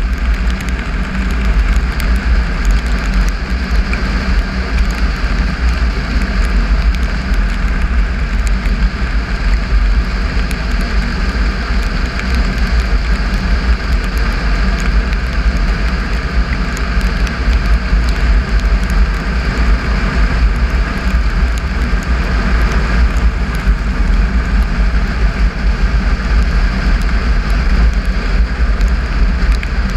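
Triumph Tiger 955i's inline-triple engine running steadily while riding along a gravel road, under a heavy, even wind rumble on the microphone. Scattered faint ticks of gravel come from under the tyres.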